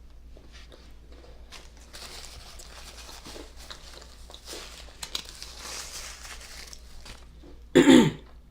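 Paper food wrapper crinkling and rustling for several seconds, then one short, loud burp near the end.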